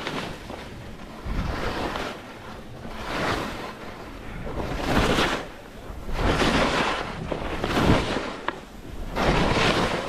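Skis scraping and hissing across firm snow in linked turns, a swell of noise with each turn about every one and a half seconds. Wind rumbles on the microphone throughout.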